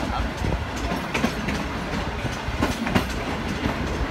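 Passenger train running along the track, heard from outside the coach: a steady low rumble of the wheels with irregular clicks and knocks from the wheels on the rails.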